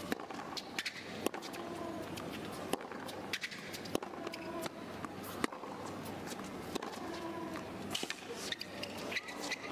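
Tennis rally on a hard court: sharp racquet strikes on the ball about every second or so, with short squeaks of shoe soles on the court surface as the players shuffle and change direction.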